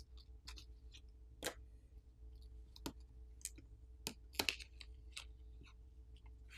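Faint, scattered sharp clicks and ticks of a plastic pry pick and the plastic internal cover of a Nothing Phone (1) as the cover is pried loose and lifted off. The loudest clicks come about a second and a half, three seconds and four and a half seconds in.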